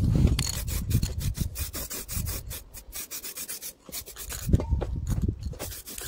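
Aerosol paint can spraying in short repeated spurts onto a steel coilover strut, mixed with rubbing and handling noise. There is a sharper knock about four and a half seconds in.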